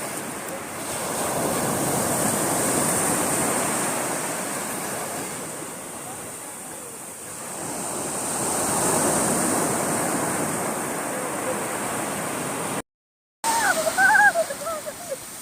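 Sea waves washing onto the shore, the rush swelling and fading twice. After a brief drop-out near the end, a voice is heard briefly.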